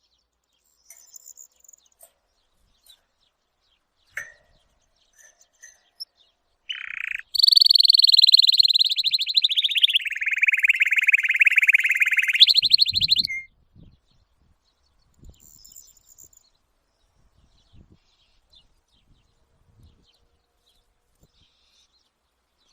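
A bird singing: a few faint chirps, then one loud, very rapid trill lasting about six seconds that drops lower in pitch partway through and jumps back up just before it stops.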